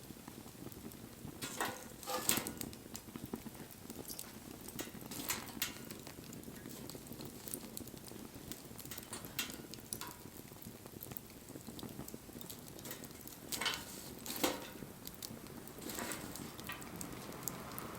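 Wood bonfire crackling: scattered sharp pops and snaps over a steady low rustle of burning, the loudest pops about two seconds in and again about three-quarters of the way through. A soft hiss comes up near the end.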